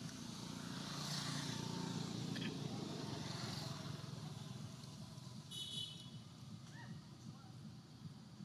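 A motor vehicle passing by, its low engine rumble swelling over the first couple of seconds and fading away. A short high chirp sounds about five and a half seconds in.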